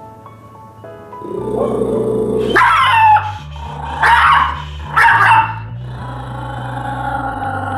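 Small, terrified terrier mix giving three snarling, defensive barks about a second apart, teeth bared in fear.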